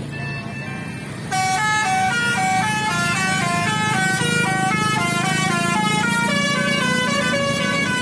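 Tour bus 'telolet basuri' musical horn playing a quick tune of short stepping notes, starting suddenly about a second in, over a low rumble.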